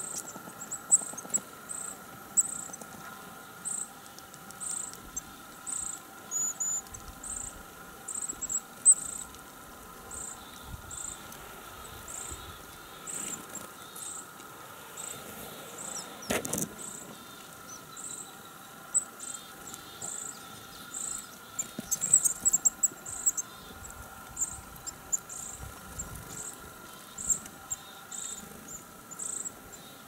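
A small songbird repeating a high, thin call note over and over, about one and a half notes a second.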